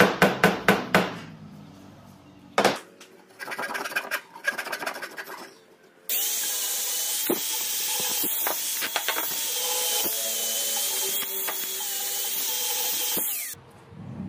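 A wooden dowel is hammered into a wooden frame joint with a quick run of about six sharp knocks, followed by a few more scattered knocks. About six seconds in, an angle grinder fitted with a sanding disc starts and runs steadily with a high whine as it sands the wooden frame, then stops near the end.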